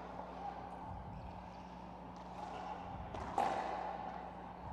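Racquetball rally: the ball smacked by racquets and rebounding off the walls of an enclosed court. One loud, sharp hit comes about three and a half seconds in and echoes in the court, with fainter hits before it, over a steady low hum.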